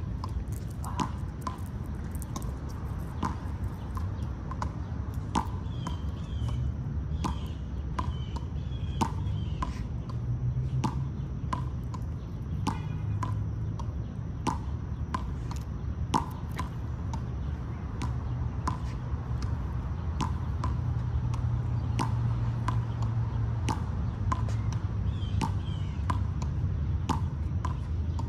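Outdoor ambience: a low steady rumble that grows a little louder in the second half, with irregular sharp ticks about one or two a second and a few short high chirps.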